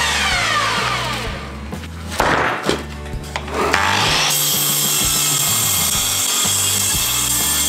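A power saw cutting through old fence wood, starting about four seconds in and then running steadily, over background music with a moving bass line.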